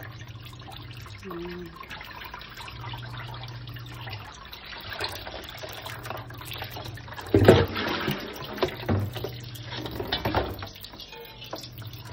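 Tap water running and splashing onto raw chicken pieces in a metal colander in a stainless steel sink, as gloved hands rub and rinse them. Handling knocks come through, the loudest a sudden knock about seven and a half seconds in.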